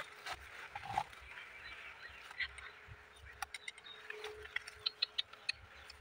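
Footsteps through grass and leafy undergrowth, then a run of small sharp clicks and rustles as hands work at the sticks and soil of a ground bird trap.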